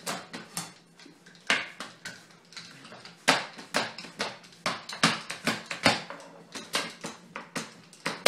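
Small handheld pastry roller rolling pizza dough out on a metal pizza pan, knocking and clacking against the pan in an irregular run of sharp knocks, about two or three a second.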